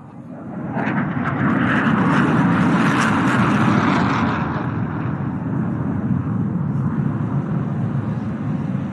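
JF-17 Thunder fighter jet's single RD-93 turbofan engine roaring past in a flyby. The jet noise swells in over the first second and is loudest for about three seconds. The hissing top then dulls and the sound settles into a steadier rumble as the jet moves off.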